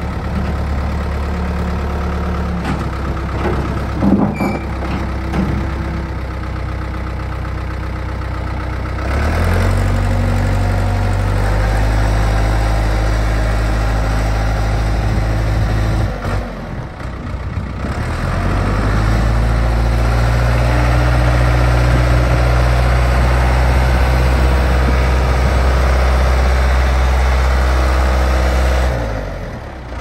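Ford 555C backhoe loader's diesel engine idling, then picking up speed about nine seconds in and held there as the machine is driven. It eases off briefly past the middle and drops back near the end, with a few knocks about four seconds in.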